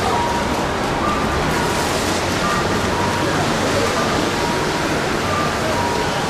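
Steady wash of roadside marathon crowd noise: spectators cheering and clapping as runners stream past, with brief higher shouts or whistles now and then.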